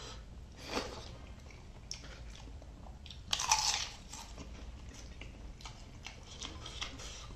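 A person biting and chewing crunchy food: a short crunch just under a second in, a louder, longer crunch about three and a half seconds in, and small chewing clicks between them.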